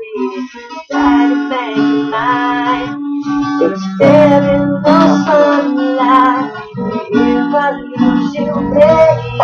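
Acoustic guitar strummed in chords, with a man singing over it.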